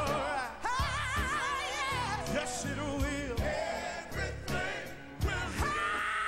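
Live gospel singing: lead vocalists belting with a wide vibrato over a band's steady beat, a choir behind them.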